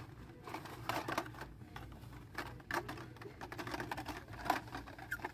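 Hot Wheels blister packs, cardboard and plastic, clacking against each other and their peg hooks as a hand flips through them: a run of light, irregular clicks.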